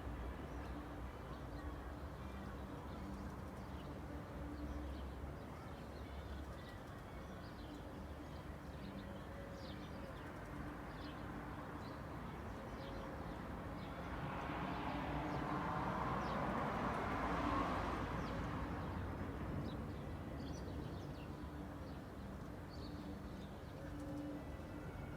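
Suburban street ambience: a steady low traffic hum with small birds chirping and pigeons cooing. A car passes, rising to its loudest a few seconds past the middle and then fading away.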